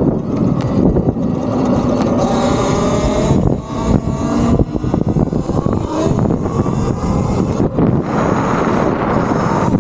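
Wind rushing over the microphone as a Talaria Sting MX4 electric dirt bike rides down the street, with the motor's whine rising and falling in pitch through the middle.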